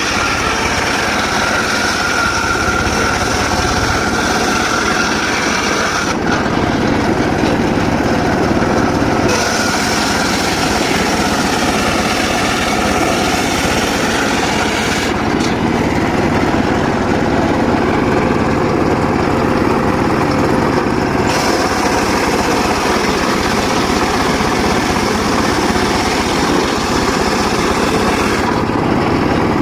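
Homemade circular saw running steadily while sawing mahogany. Its sound turns lower and duller twice, from about six to nine seconds in and again from about fifteen to twenty-one seconds, then brightens again.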